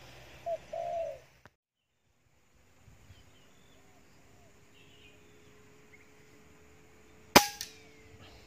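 Spotted dove cooing for about a second, then after a cut a single sharp crack of a PCP air rifle shot about seven seconds in, with a weaker second crack right after; the pellet struck a tree branch instead of the dove.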